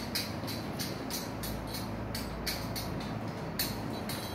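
Braided stainless flexible hose's threaded nut being screwed by hand onto a chrome angle valve, giving short scraping clicks at about three a second over a steady low hum.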